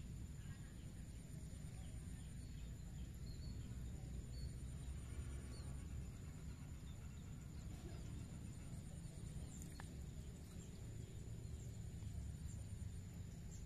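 Faint rice-paddy ambience: a low wind rumble on the microphone under a steady high-pitched insect drone, with a few faint, scattered bird chirps.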